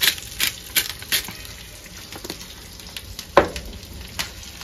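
Stingray fillet frying in butter in a pan, a steady sizzle. A seasoning shaker is shaken over it about four times in the first second or so, and a single sharp clack comes about three and a half seconds in.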